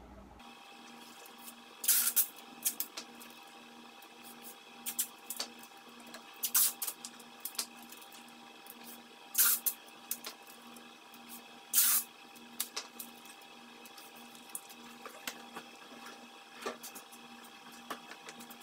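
Masking tape being pulled off the roll in short rips, four loud ones a few seconds apart, with smaller crackles and clicks between them over a faint steady hum.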